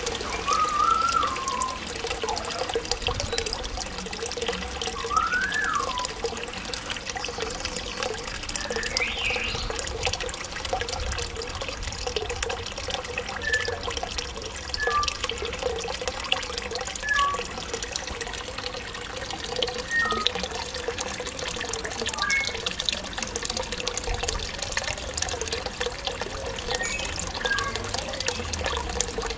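An African grey parrot whistling in the background: a couple of rising-and-falling whistles in the first few seconds, a rising whistle, then short scattered peeps. Under it runs a steady trickle of water.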